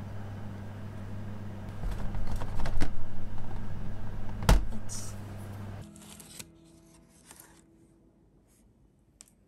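Clatter and clicks of things being handled, with one sharp knock about four and a half seconds in, over a steady low hum that stops about six seconds in.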